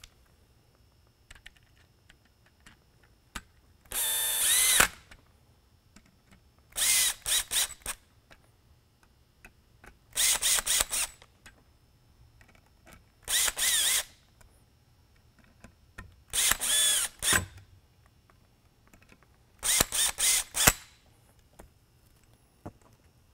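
Cordless drill-driver running in six short bursts of about a second each, some in quick stutters, as it drives the screws that fasten the optic plate onto the LED spotlight housing. Small handling clicks fall between the bursts.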